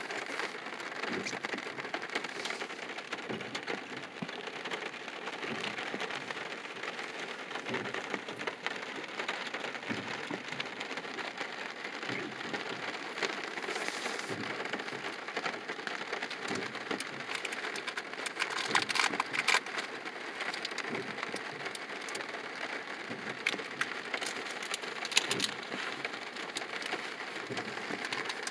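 Rain pattering on a car's roof and windshield, heard from inside the car: a steady hiss of drops with many small taps, thickening into sharper ticks for a moment a little past two-thirds of the way through.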